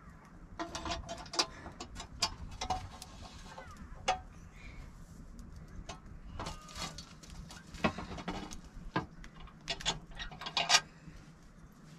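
Irregular clicks and light knocks, some in quick runs, from baking flatbread on a domed iron griddle (saj) over a wood fire: the bread and a stick handled against the hot iron, with the fire crackling.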